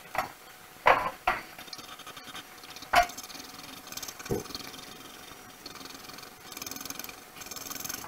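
A few sharp taps and clicks in the first three seconds, then a pencil rubbing back and forth on paper as it shades, a soft scratchy hiss over the last couple of seconds.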